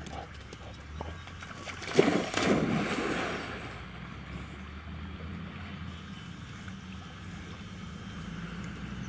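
A dog splashes into a pond about two seconds in, then the water swishes as it swims. A steady low hum runs underneath.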